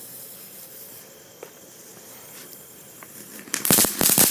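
Faint hiss with a few soft ticks, then about three and a half seconds in a lit firework, the Blazing Rebel, goes off in rapid, loud crackling pops.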